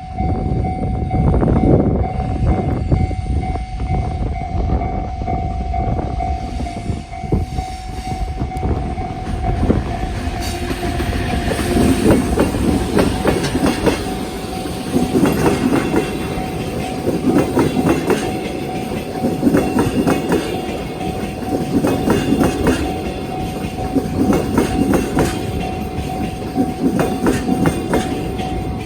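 ED75 electric locomotive and a long train of Chiki 5500 rail-carrying flat wagons passing close by. From about ten seconds in, the wheels clack over the rail joints in a regular rhythm every couple of seconds, over a steady ringing tone from the level-crossing alarm.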